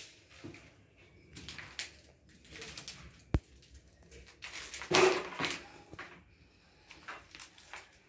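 Footsteps and scuffing over a debris-littered floor, in irregular scrapes and knocks. A sharp click comes a little past three seconds in, and a louder scraping rustle about five seconds in.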